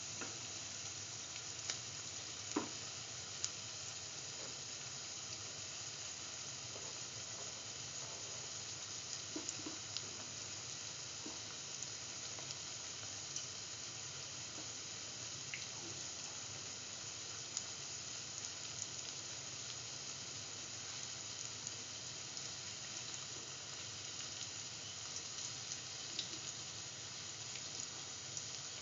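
Split chickpea fritters frying in hot oil in a pan: a steady sizzle with a few faint clicks scattered through it.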